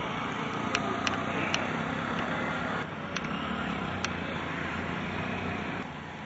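Road noise on a wet street as a pack of racing bicycles passes: a steady hiss with a few sharp clicks.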